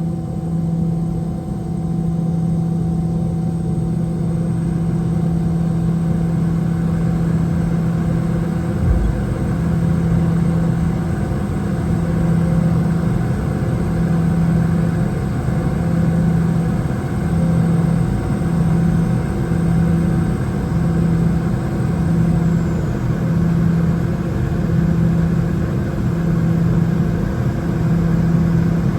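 Boeing 717-200's rear-mounted Rolls-Royce BR715 turbofan engines running, heard from inside the cabin: a steady hum with a low drone that pulses in a slow, even beat, growing a little louder a few seconds in.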